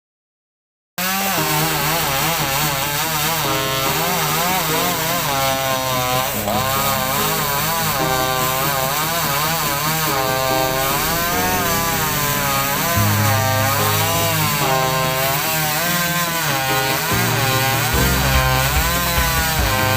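Two-stroke chainsaw cutting through mango wood. It starts abruptly about a second in, and the engine pitch rises and falls as the chain bites and eases.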